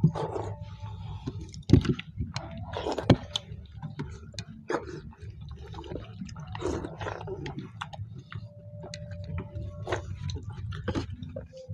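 People eating khichdi fast by hand: wet chewing, lip smacking and squishing of soft rice, with irregular small clicks throughout and two louder sharp knocks about two and three seconds in, over a steady low hum.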